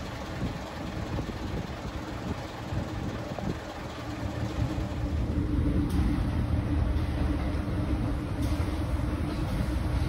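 Narrow-gauge train running: a steady low rumble that grows louder about halfway through.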